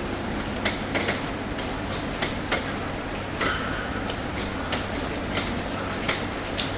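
Rain tapping on a roof: a steady patter of rain with irregular sharp drips striking the roof, about one every half second.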